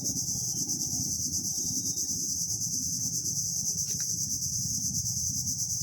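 Dense insect chorus: a steady high-pitched trill running without a break, over a low, rough rumble.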